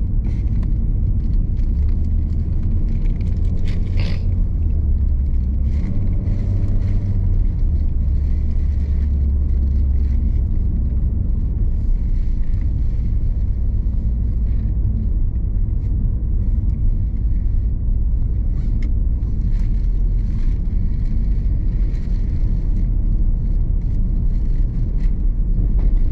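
Steady low rumble of a Mitsubishi Xpander Cross driving, heard from inside the cabin: engine and road noise.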